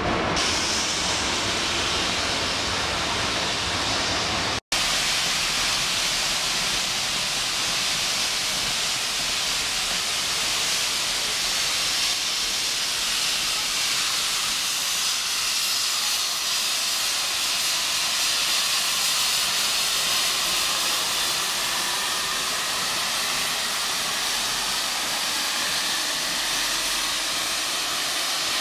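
A log train rolling past for the first few seconds, then a Heisler geared steam locomotive's safety valve blowing off in a steady hiss. The valve is stuck open and the engine is losing boiler pressure.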